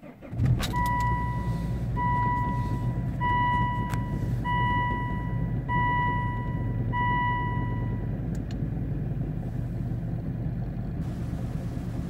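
Volvo V70 D5 2.4-litre five-cylinder turbodiesel catching on a cold start at −18 °C about half a second in, then idling steadily, heard from inside the cabin. A dashboard warning chime beeps six times, roughly once a second, over the first eight seconds.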